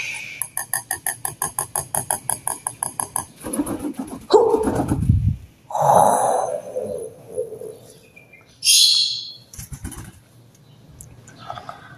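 A small pet parrot calling: a fast run of short pitched chirps, about seven a second, then louder wordless cries and a sharp high squawk about nine seconds in, mixed with a man's wordless play noises.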